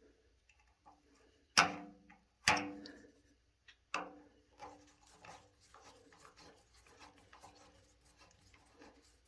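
Three sharp clicks or knocks, each with a short ring after it, the first about a second and a half in, followed by faint small ticks and rubbing: hands and a tool working wires onto the terminals of a water heater's thermostat.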